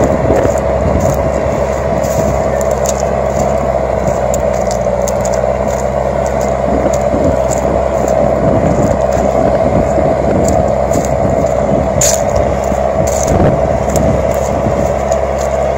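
John Deere 6420 tractor's four-cylinder diesel engine running steadily under load while pulling a mounted plough through the soil, with scattered faint clicks and rattles throughout.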